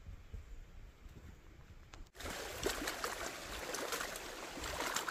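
Low wind rumble on the microphone, then, after an abrupt change about two seconds in, small waves lapping and trickling at the edge of a lake.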